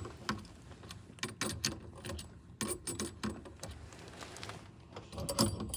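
Irregular light metallic clicks and clinks of hand tools and steering-column parts being handled.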